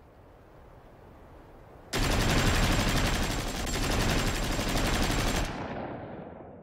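Machine-gun fire: a long, rapid burst that cuts in abruptly about two seconds in, runs for about three and a half seconds, then fades away.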